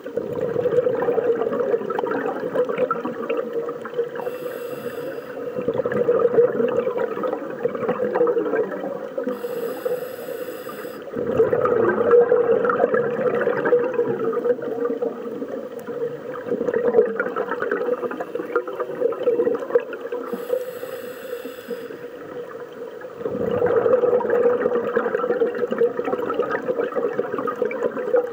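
Scuba diver breathing through a regulator, recorded underwater: three slow breaths, each a short hissing inhale followed by a louder rush of bubbling exhale, over a steady underwater hum.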